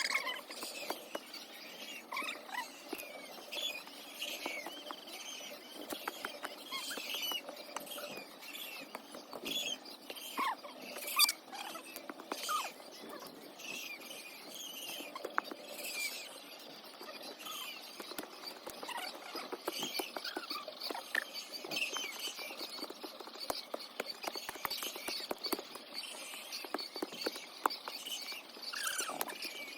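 Many young chicks peeping continuously in short, high, mostly falling chirps, with scattered sharp clicks among them.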